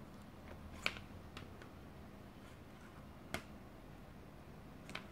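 A few sharp, isolated clicks and taps from hands handling a smartphone beside a laptop, the loudest about a second in, over a faint steady hum.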